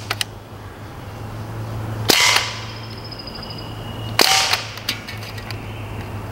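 Umarex Ruger 10/22 CO2 pellet rifle firing two shots about two seconds apart, with a few lighter clicks in between.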